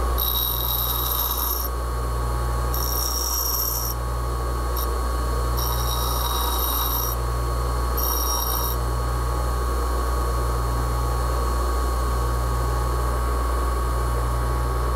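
Bench grinder running with a steady motor hum while a hardened O1 tool-steel boring bar tip is pressed to the wheel. There are four passes of about a second each plus one brief touch, each heard as a high-pitched ringing whine of steel on the wheel. After the last pass, about nine seconds in, the grinder runs on alone.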